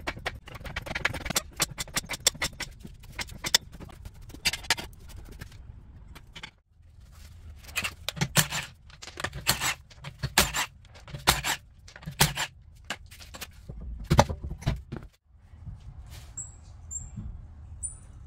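Rapid, irregular clicks and knocks of tools and metal parts being handled, breaking off abruptly twice; near the end it goes quieter, with a few faint, short, high chirps.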